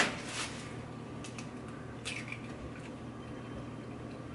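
An egg cracked with one sharp knock, then a few faint clicks of eggshell as the yolk is passed between the shell halves to separate it from the white. A low steady hum runs underneath.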